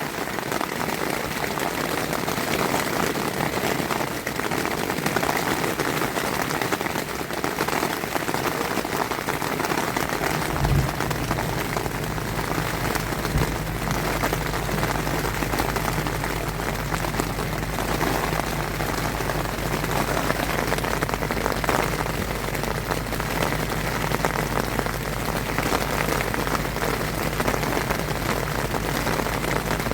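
Heavy rain drumming steadily on the fabric of a small tent during a thunderstorm. About eleven seconds in, a steady low hum comes in underneath and carries on.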